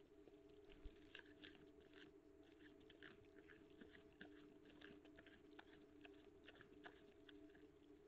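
Wild boar foraging with its snout on the ground: faint, irregular crunching and clicking from chewing and rooting, over a faint steady hum.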